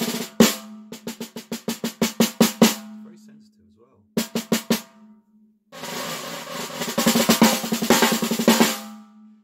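Worldmax Black Dawg 14x5 snare drum with a welded brass shell, on its stock heads and factory tuning, struck with drumsticks: a couple of single hits, a fast run of even strokes about a second in, a few more hits, then a roll over the last few seconds. After each hit the drum rings on with a steady tone.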